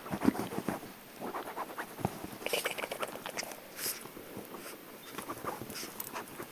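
Chihuahua puppy play-fighting with a person's hand on a blanket-covered couch: irregular scuffling and rustling of the blanket, with a few short puppy growls near the start.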